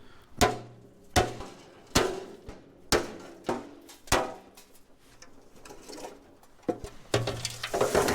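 Repeated hammer blows on scrap, about one strike a second: six sharp hits, a short lull, then a quicker cluster of strikes near the end.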